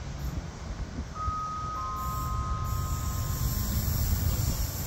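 Two steady high tones, each held for about two seconds, the second coming in just after the first and overlapping it, over a steady low rumble.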